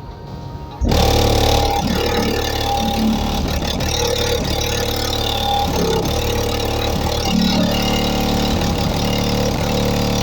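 Car subwoofer pounding out heavy bass from music played loud on the car's stock system, coming in suddenly about a second in and holding steady.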